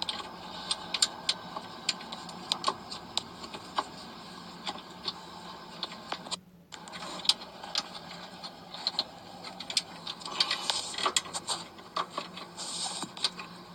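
Metal hand tools working on the Toyota Innova's starter motor mounting bolts as they are tightened: irregular light metallic clicks and taps, over a faint steady hum.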